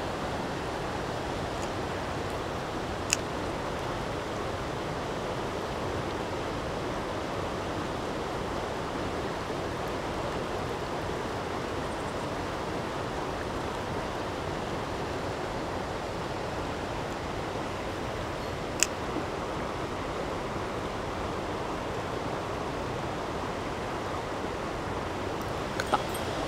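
Mountain stream flowing steadily over its bed, an even rushing of water. A few sharp clicks cut through it: one about three seconds in, one past the middle, and a quick pair near the end.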